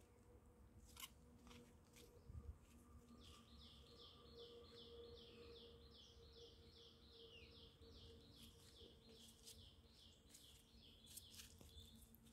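Faint bird song: one bird repeats a short, downward-sliding high note about three times a second for several seconds. A few faint clicks come near the start and near the end.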